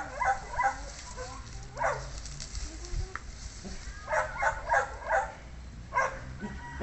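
A dog barking in short runs of quick barks: a few right at the start, a single bark, then a fast run of about five, and one more near the end.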